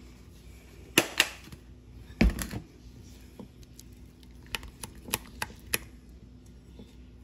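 Kitchen clicks and knocks: two sharp clicks about a second in and a heavier knock just after two seconds, then a run of light clicks as a silicone spatula stirs thick dressing in a ceramic bowl.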